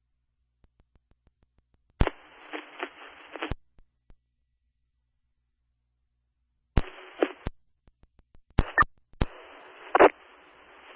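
Fire-department radio channel heard through a scanner: a few brief key-ups carrying only static hiss, each opening and closing with a squelch click, with silence between them. The first comes about two seconds in, a short one follows past the middle, and a longer one with a sharp click runs near the end.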